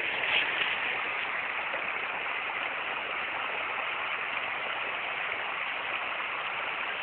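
Steady rush of running water, an even hiss that is a little louder in the first second.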